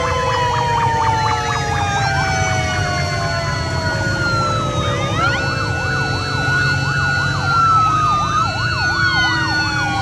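Several police motorcycle sirens sounding together, overlapping fast yelping and steady wailing tones, some sliding slowly lower in pitch as the bikes ride past, over the low running of the motorcycle engines.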